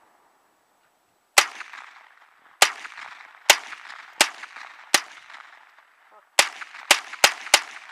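Nine gunshots, each dying away in a short echo: five spaced about a second apart, then four in quick succession near the end.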